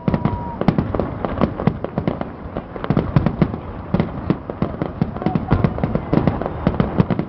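Fireworks display going off in a dense, continuous barrage of bangs and crackles, several a second.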